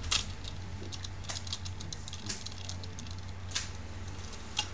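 Screwdriver working the screws of a laptop's copper heat-pipe heatsink: scattered sharp small clicks and taps, a handful over a few seconds, the sharpest right at the start. A steady low hum runs under them.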